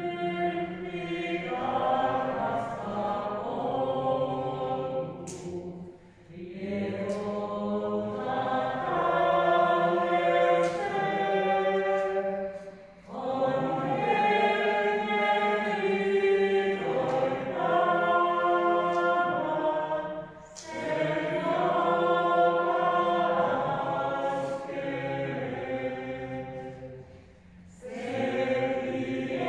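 A hymn sung by a small group of voices in slow, sustained phrases of about six to seven seconds each, with a brief pause for breath between phrases.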